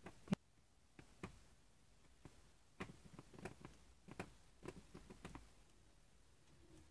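Faint, irregular ticks and creaks from braided fishing line under tension cutting slowly through a windshield's urethane seal. A sharper click comes about a third of a second in, and the ticks bunch together in the middle.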